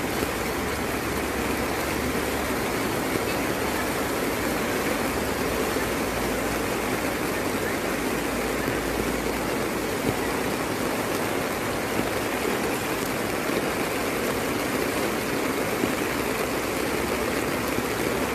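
Heavy rain pouring and floodwater rushing along a street curb: a steady, unbroken wash of noise.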